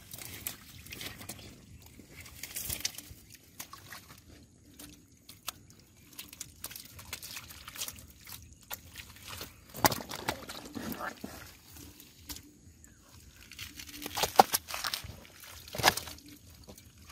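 Wet mud squelching and sloshing as hands grab catfish out of shallow mud, with irregular sharp slaps of wet fish and hands, the loudest about ten seconds in and twice near the end.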